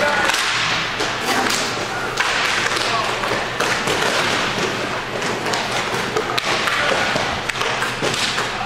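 Inline hockey game play: irregular knocks and thuds of sticks and puck against each other and the rink boards, over a steady wash of rink noise.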